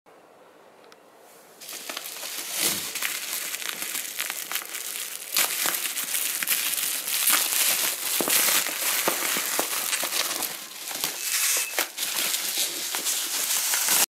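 Plastic bubble wrap crinkling and rustling as it is pulled off a cardboard box, with many sharp crackles. It starts about two seconds in.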